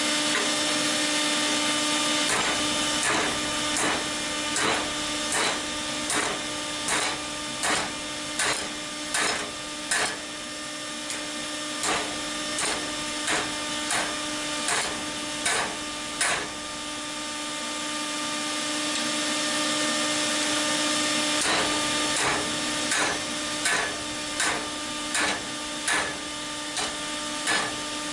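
Hand-hammer blows on hot salvaged steel on an anvil, forging the blade: evenly paced ringing strikes a little faster than one a second, stopping for about five seconds midway and then resuming. A steady hum runs underneath.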